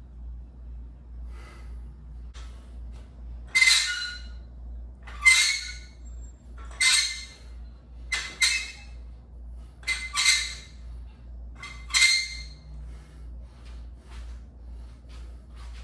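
Metal weight plates on a barbell clinking with each curl rep, six sharp clinks with a faint ring, about one every one and a half to two seconds. A steady low hum runs underneath.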